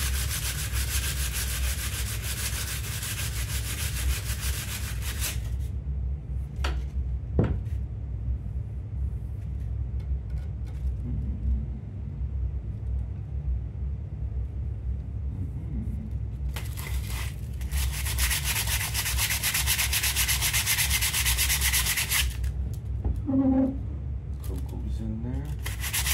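A power tool's spinning abrasive head scouring a piece of oak in three spells: about five seconds, about six seconds, and a short one near the end. A steady low hum carries on between the spells, and there are a couple of small knocks about seven seconds in.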